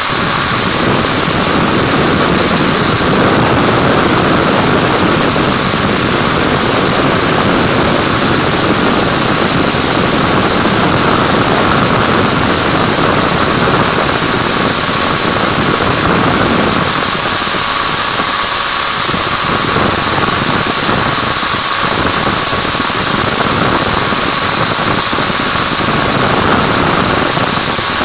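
Electric angle grinder running with its disc grinding a small metal ring part: a steady high whine over a rasping grind. The rasp thins about two-thirds of the way through while the whine carries on.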